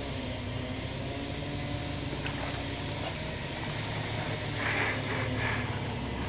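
Car engine running with a steady low hum, with a few brief higher sounds near the end.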